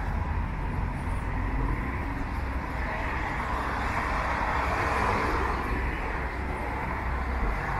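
Road traffic: cars passing on the street, their tyre noise swelling to a peak around the middle and fading again.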